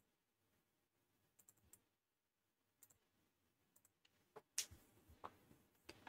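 A few faint, scattered computer mouse clicks over near silence, the loudest pair about four and a half seconds in.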